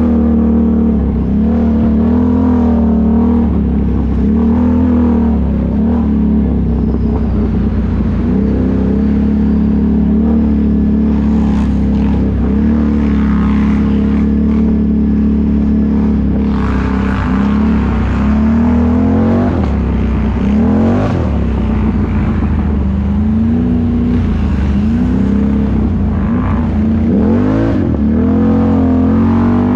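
ATV engine running under load, its pitch rising and falling again and again as the throttle is worked.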